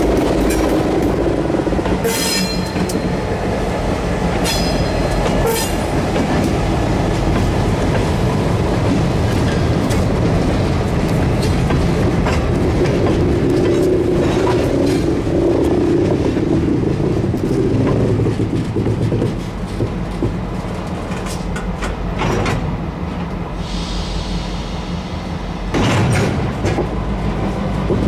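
A freight train of gondola cars rolling past close by, just behind its EMD GP38-2 diesel locomotive: a steady rumble of steel wheels on rail with clicks over the rail joints. Brief high wheel squeals come twice in the first several seconds.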